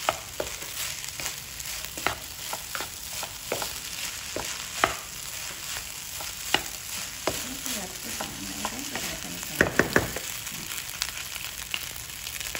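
Fried rice being stir-fried in a nonstick pan with a wooden spatula: a steady sizzle of frying under frequent clicks and scrapes of the spatula against the pan, with a quick run of louder taps about ten seconds in.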